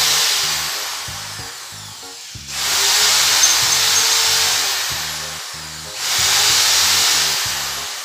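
Electric hand drill with a countersink bit cutting into a scrap flat iron bar held in a vise, widening screw holes so the screw heads sit flush. It runs in repeated bursts, each starting loud and fading over a few seconds, restarting about every three and a half seconds.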